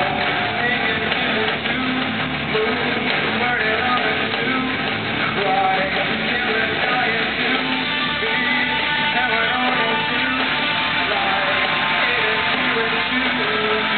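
Rock band playing live in an arena: electric guitar, bass guitar and drum kit playing together, heard from the arena stands.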